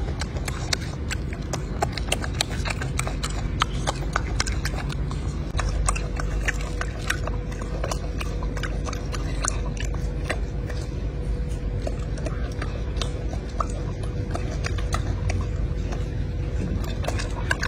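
Golden snub-nosed monkey eating a peeled orange: a dense, irregular run of clicks and smacks from its chewing, over a steady low rumble and a faint steady hum.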